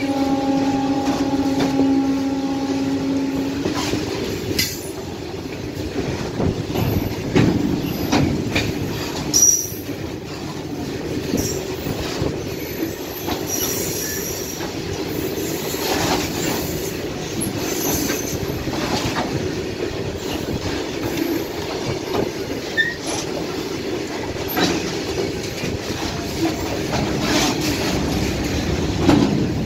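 Open freight wagons of an Indian Railways goods train rolling past close by, their wheels rumbling and clattering over the rail joints. A steady wheel squeal sounds for the first few seconds, and brief high squeals come later.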